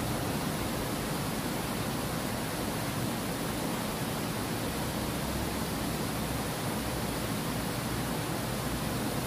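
Steady rushing of water spilling over a low concrete weir into a channel.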